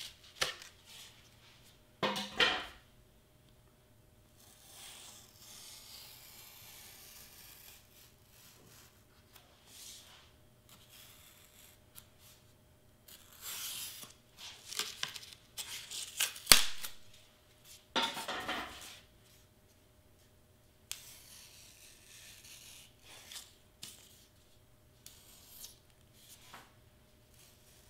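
Pen-style craft knife slicing through heavy black paper on a cutting mat: scattered scratchy cutting strokes with quieter pauses between, and one sharp click a little past halfway.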